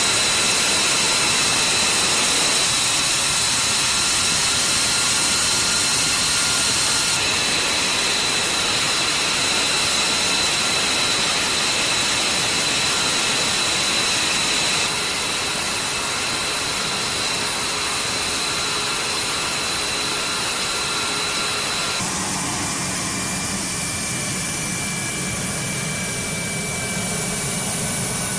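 Fighter jet engines running on the ground: a steady high-pitched whine over a loud hiss. The sound shifts abruptly a few times, and a lower hum joins for the last several seconds.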